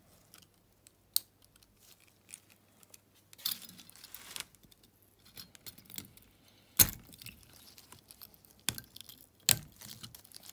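Metal-on-metal clicks and scraping as the centre circlip is worked into its groove on an ATV clutch hub with a tool: a rasping scrape about three and a half seconds in and several sharp clicks, the loudest about seven seconds in.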